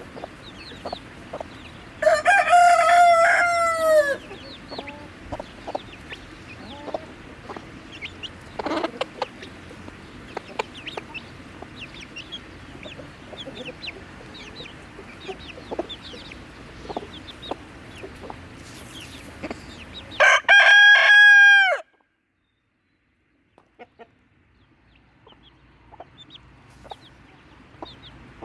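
A flock of chickens clucking, with a rooster crowing loudly twice, once near the start and once about two-thirds of the way in. Just after the second crow the sound drops almost to silence for a couple of seconds, then the clucking returns.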